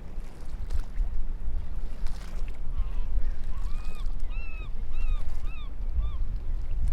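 Beach ambience with a steady low rumble, through which a bird calls a quick series of about eight short rising-and-falling notes, roughly two a second, from about three to six seconds in.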